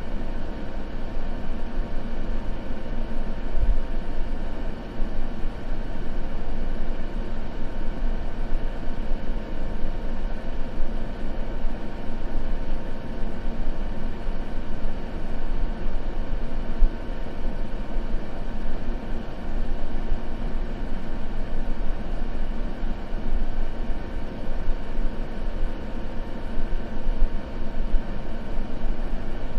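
Continuous white-noise ambience: a steady, deep hiss, heaviest in the low end, with a faint steady hum and no crackle or breaks.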